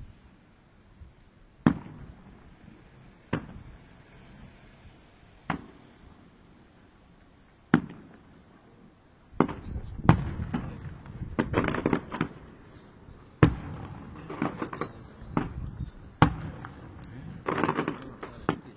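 Fireworks exploding: single sharp bangs every couple of seconds at first, then from about halfway a denser run of bangs and crackle.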